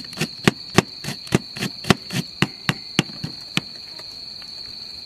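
Kitchen knife mincing green onion on a cutting board: quick, even chopping knocks, about four a second, that stop about three and a half seconds in. A steady insect trill runs behind.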